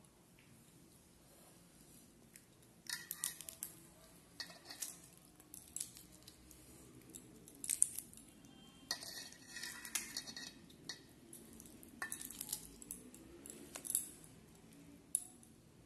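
Fingers breaking apart the shell of a large curried prawn over a steel plate: clusters of sharp crackles and clicks, with light knocks against the plate.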